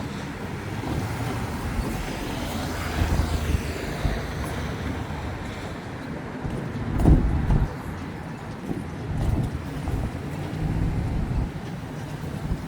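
Road traffic on a busy city street: a steady low rumble of passing vehicles, with one louder swell about halfway through.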